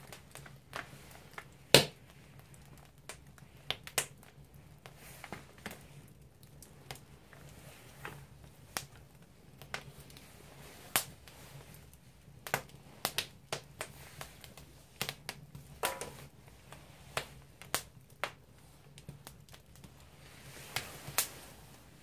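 Split firewood burning in an agungi, a traditional Korean firebox, crackling with irregular sharp pops. One pop less than two seconds in is much louder than the rest.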